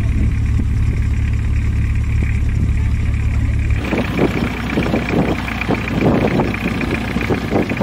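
Motorboat engine running with a steady deep hum. About four seconds in, the sound changes abruptly to a harsher, choppier noise.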